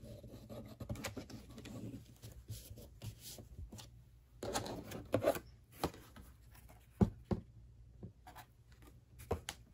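Faint handling sounds of a craft sign board and paper on a table: soft rubbing at first, a short burst of rustling about halfway, then a few light knocks as the board is handled and set down near the end.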